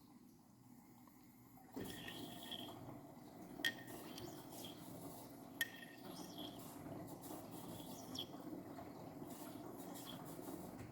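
Samsung washing machine with water running and sloshing in the drum, faint, starting suddenly about two seconds in, with a few sharp clicks.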